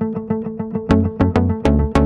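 Background music: a rhythmic instrumental with a steady bass line and plucked, staccato notes.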